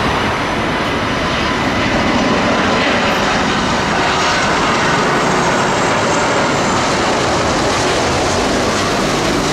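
Jet engines of an Airbus A330 passing low over the runway and climbing away in a go-around, a steady loud roar.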